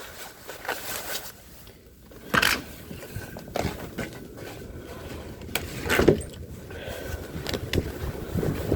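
Footsteps crunching in fresh snow and sleet, a step roughly every second, uneven, over a faint hiss.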